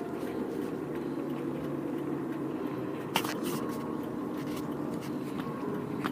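Steady low rumble of a car on the move, with one sharp click about three seconds in.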